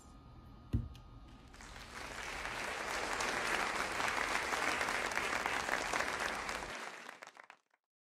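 A single low thump, then applause that swells in about a second and a half in, holds, and fades out to silence near the end.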